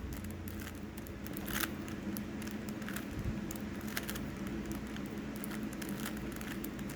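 Rubik's cube being turned quickly by hand: a run of irregular clicks and clacks from the plastic layers, over a steady low hum.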